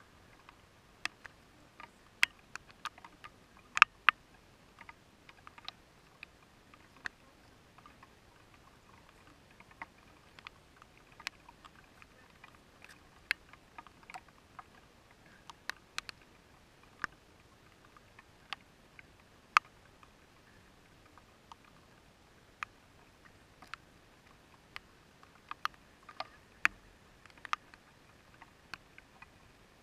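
Scattered raindrops tapping on a car's windshield, heard from inside the car: irregular sharp ticks, a few each second at most, some much louder than others.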